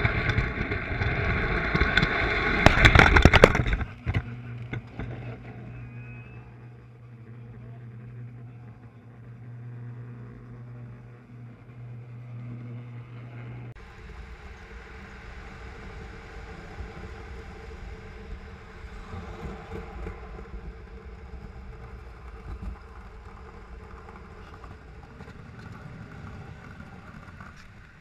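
Lionel toy trains running on the layout's track. Loud rumble and clatter for the first few seconds, then a steady low hum. About halfway through the sound changes abruptly to a quieter, steady running rumble as a train passes.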